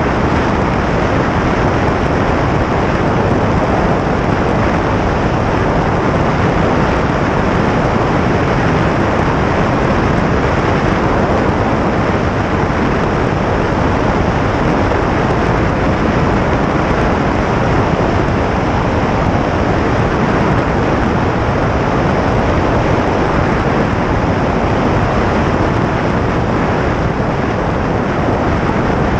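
Steady, loud rush of airflow over the microphone of a camera mounted on the outside of a small propeller airplane in flight, descending on approach to land.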